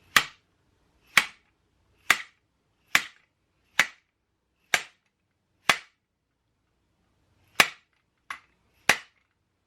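Hammer striking a star-nut setting tool ten times, sharp metal blows about once a second with a short pause before the last three, driving a star nut down into the fork's steerer tube. The nut goes in but not all the way.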